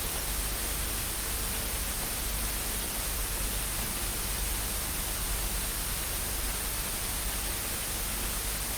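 Steady static hiss, an even noise with no change in level.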